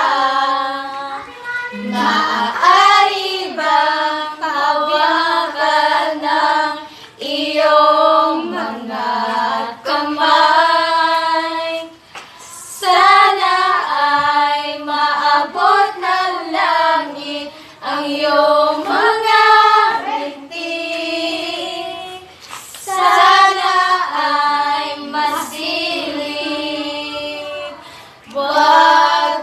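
Group of young girls singing together in Tagalog without accompaniment, in sung phrases of a few seconds with brief breaks for breath between them.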